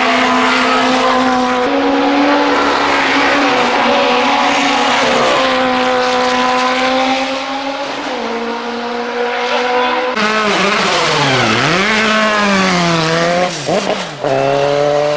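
Racing car engines running hard on a hill climb. A high-revving note holds and steps between pitches as gears change, then about ten seconds in it drops steeply and climbs again as a car lifts off and accelerates.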